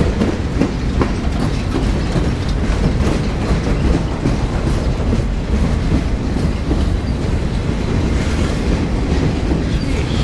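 Freight train of boxcars rolling past close by: a steady, loud rumble of steel wheels on rail, with the irregular clickety-clack of wheels over rail joints.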